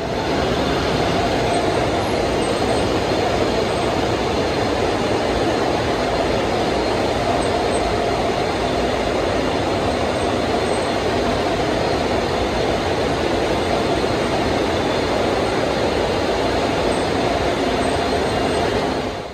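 Train running on the rails: a loud, steady rush of wheel and track noise, with no clear clickety-clack rhythm.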